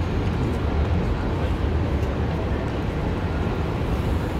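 Steady busy-street background noise with a deep, even rumble.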